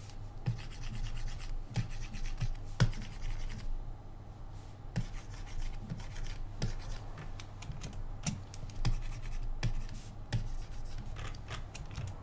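Irregular clicks and light scratching from hand-drawn brush strokes on a computer input device, over a low steady hum.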